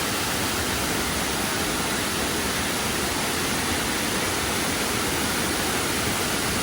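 Waterfall: a steady, unbroken rush of falling water, running high after days of rain.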